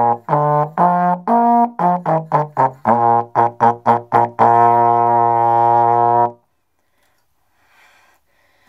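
Solo trombone playing the end of a minuet: a run of short detached notes, then a long held low final note that cuts off about six seconds in, followed by a faint breath.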